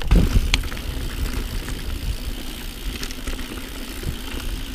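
Mountain bike rolling down a dirt and gravel trail: steady tyre and riding noise over a low rumble, with a couple of clunks right at the start as the bike rides over rough ground.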